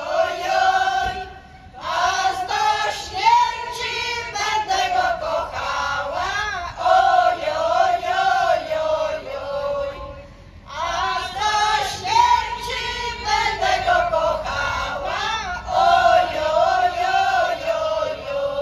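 Choir of older women singing together, phrase by phrase, with two short breaks between phrases, about a second in and again about ten seconds in.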